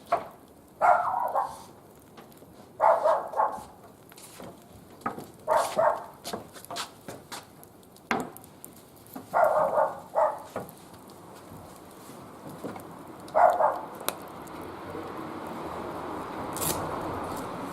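A dog barking in short bursts, about five times, a few seconds apart, with light sharp clicks in between.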